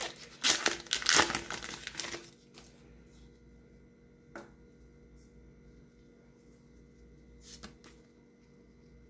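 Foil Pokémon booster pack wrapper crinkling and tearing as it is opened, for about two seconds. After that it goes quiet, with a couple of faint clicks.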